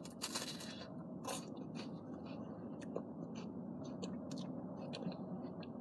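Close-up biting and chewing of an ice cream cone (a dip cone): a burst of small crunches and crackles as it is bitten, then scattered chewing clicks. A low steady hum sits underneath.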